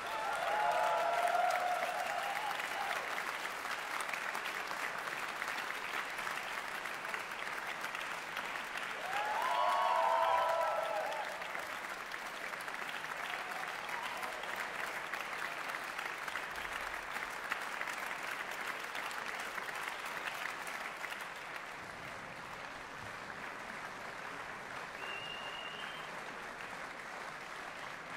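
Concert hall audience applauding steadily, with cheering voices calling out over the clapping about a second in and again around ten seconds in.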